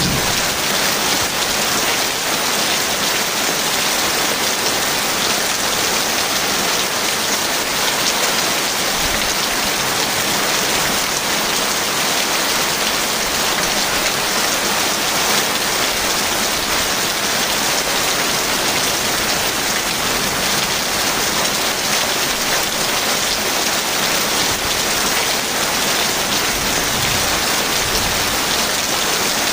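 Heavy rain falling steadily, a dense even hiss of drops with no thunder clap.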